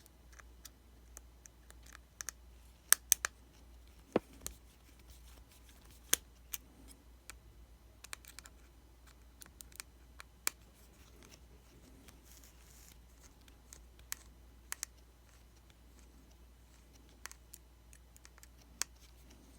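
Scattered small clicks and taps of a tiny screwdriver against screws and metal parts inside an iPhone 5C, irregular, with a few sharper clicks about three to four seconds in and again around six and ten seconds.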